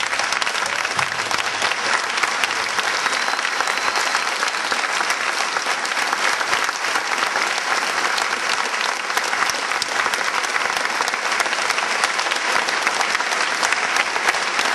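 A large crowd applauding, a dense, continuous clatter of many hands clapping that holds steady throughout.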